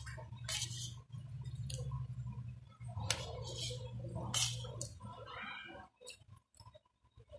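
Metal spoon scraping and clinking against a plate as rice is scooped up, with a few sharp clinks, over a low steady hum that fades out a little past halfway.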